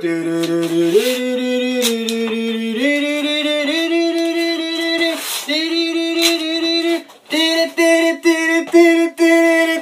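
A voice singing a slow tune of long, steady held notes that step up in pitch, then breaks into shorter repeated notes near the end.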